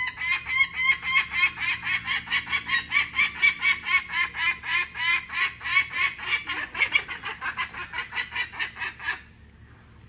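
Peregrine falcon cacking: a long run of rapid, repeated calls, about five a second, that stops suddenly about nine seconds in.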